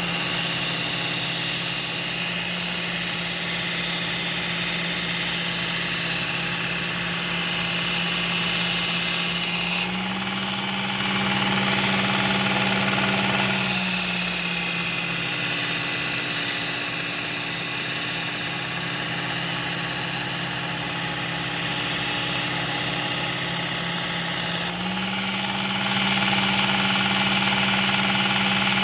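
Work Sharp Ken Onion Edition belt sharpener running with a 120-grit Cubitron belt, a machete edge ground against it in two long passes of about ten seconds each. Each pass brings a high grinding hiss, and the motor drops slightly in pitch under the load. Between the passes and near the end the motor hums alone. This is the apexing stage, grinding the edge until a burr forms.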